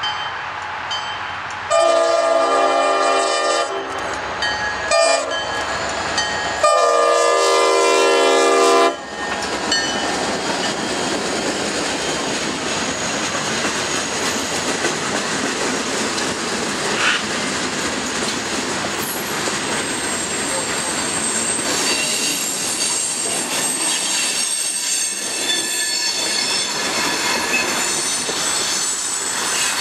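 Diesel freight locomotive sounding its air horn in several blasts, the longest about two and seven seconds in, the last cutting off about nine seconds in. Then a freight train rolling past with a steady rumble of wheels on rail, clacking over the joints, with some high wheel squeal later on.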